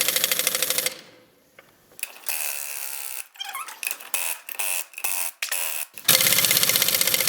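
Impact wrench hammering lug nuts tight on a car's wheel hub, in two bursts: the first stops about a second in and the second starts about six seconds in. Scattered clanks of tools and parts fall in between.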